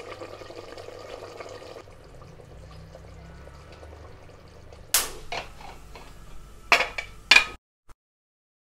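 Meat-and-cauliflower curry bubbling gently in an aluminium pressure cooker, with a few sharp knocks against the pot about five and seven seconds in; then the sound cuts out abruptly.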